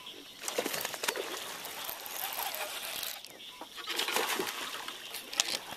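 Irregular splashing at the water's surface as a hooked bass thrashes on a topwater frog, loudest about four seconds in.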